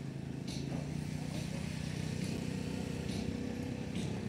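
An engine running steadily with an even low hum, with a few faint short hisses over it.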